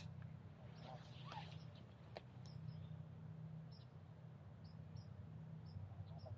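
Faint, short high chirps from small birds, repeated every second or so, over a low steady hum, with a brief click about two seconds in.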